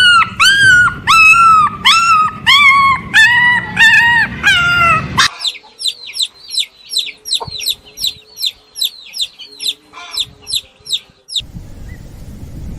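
Chickens calling: a run of loud, repeated calls about two a second, then an abrupt switch to fast, high, falling peeps about three a second, which stop near the end.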